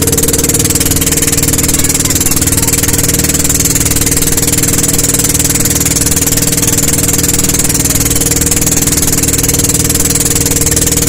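Outrigger boat's engine running steadily under way, a loud constant drone that holds one pitch throughout.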